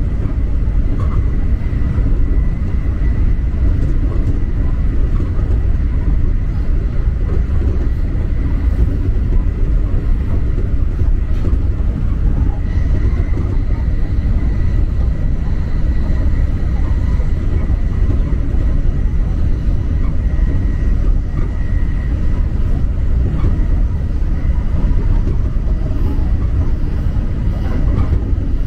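Electric rapid train running steadily on the JR Kobe Line, heard from inside the front car: an even low rumble of wheels on track with a faint high tone on top.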